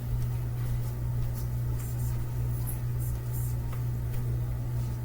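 A steady low hum, with faint scattered clicks and rustles over it.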